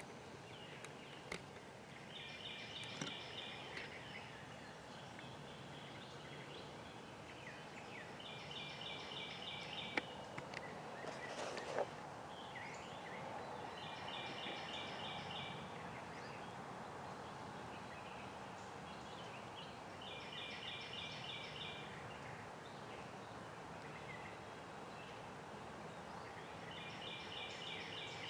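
Wild turkey gobbler gobbling in the distance, a quick rattling gobble repeated five times, about every six seconds. A single sharp crack about halfway through.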